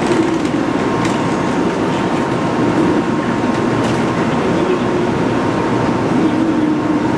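Steady hum of a stopped Shinkansen N700 series train's on-board equipment, with a thin steady whine running through it. A few light clicks of passengers' footsteps come near the start.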